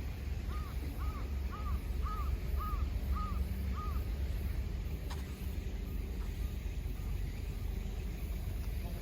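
A bird calling seven times in a quick, even series over a steady low rumble.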